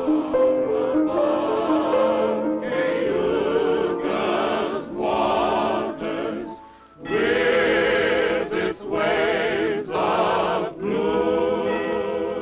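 A choir of men and women singing held notes with vibrato, in phrases broken by a short pause about halfway through.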